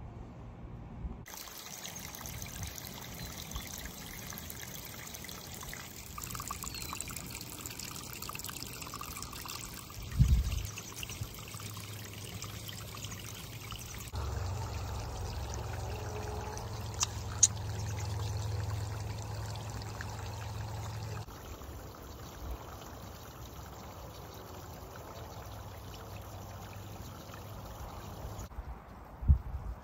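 Running water, a steady trickling hiss whose character changes abruptly several times. About ten seconds in there is a dull thump, and later a single sharp tick.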